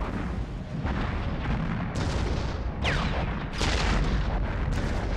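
Artillery bombardment: a continuous deep rumble with cannon booms landing about once a second, and a falling whistle about three seconds in.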